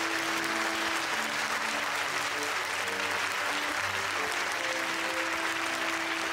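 Applause, many hands clapping steadily throughout, over light background music with a held note and short plucked notes.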